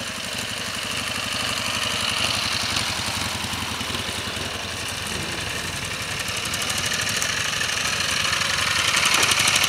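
Military-style sidecar motorcycle's engine running at low speed under light load, with a steady firing beat. It grows louder near the end as the outfit drives up close.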